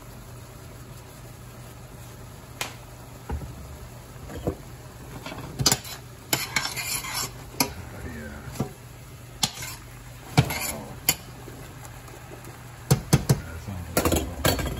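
A spatula stirring and scraping through sliced mushrooms in a simmering sauce, clicking and knocking against the sides and bottom of a stainless steel pan in irregular bursts. The clicks begin a couple of seconds in, over a steady low hum.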